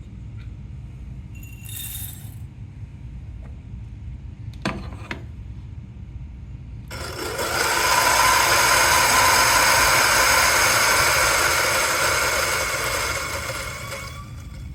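Turin DF83V flat-burr coffee grinder grinding a 16 g dose of medium-roast beans: the motor spins up about seven seconds in, grinds steadily for about seven seconds, then winds down near the end. Before it come a few light clinks and a single click.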